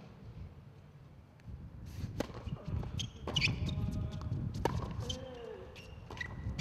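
Tennis ball struck by racket strings and bouncing on a hard court during a baseline rally: a series of sharp pops roughly a second apart, starting about two seconds in. Short high sneaker squeaks come in between, over a low steady background hum.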